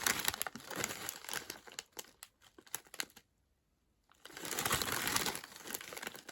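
Plastic snack packets crinkling as they are handled. There are two spells of crackling with a pause of about a second between them.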